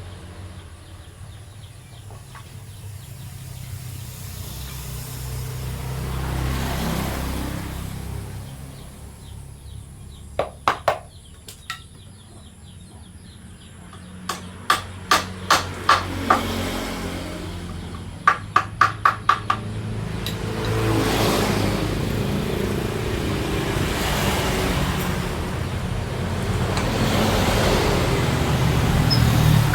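Hammer knocking on wood in three short runs of sharp blows, the last quick and rapid, over a low rumble that swells and fades like passing vehicles.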